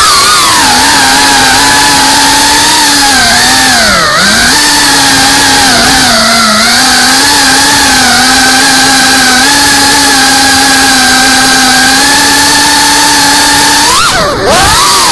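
FPV racing quadcopter's motors and propellers whining loudly and steadily, picked up by the camera on the drone itself. The pitch sags and climbs back with throttle changes about four seconds in and again near the end.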